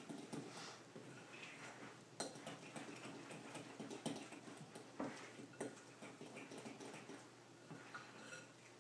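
Cake batter being stirred by hand in a mixing bowl: faint, irregular taps and scrapes of the utensil against the bowl, with a few sharper clinks.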